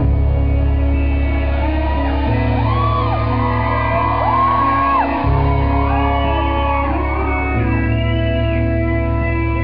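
Live rock band playing: electric guitars over held low bass notes that change every two to three seconds, with long voices rising and falling in pitch over the top.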